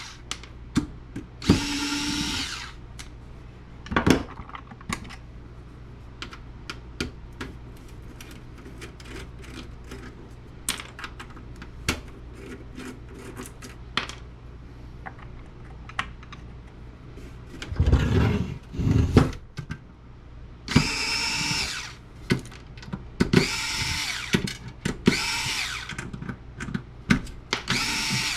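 Cordless drill-driver with a number 1 bit running in short bursts, each about a second long, as it backs screws out of a network switch's case. Sharp clicks and clatter of screws and metal parts come between the bursts.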